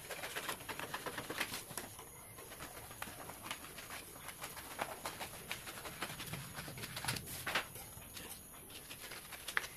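Scissors cutting through a large sheet of pattern paper: a run of short, crisp snips with the paper rustling as it is held and moved.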